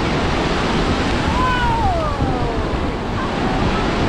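Sea waves surging and breaking in the surf around the microphone, with wind buffeting the microphone.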